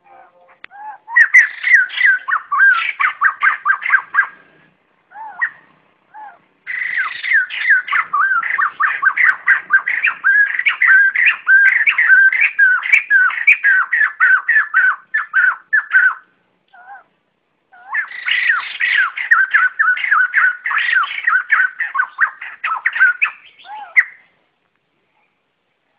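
White-crested laughingthrushes giving their flock-gathering call: loud, rapid chattering runs of quickly repeated notes, in three bursts of several seconds each with short pauses and a few lone notes between.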